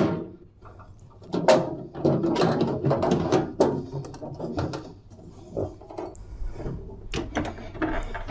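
Sheet-metal outer cover of a microwave oven being slid and fitted back onto the casing: a sharp clank about a second and a half in, then scraping and rattling with several lighter knocks.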